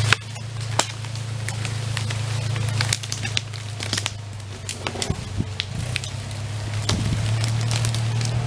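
Massey Ferguson tractor engine running steadily under load while skidding a pine log, with branches and brush snapping and crackling under it. The engine grows louder near the end.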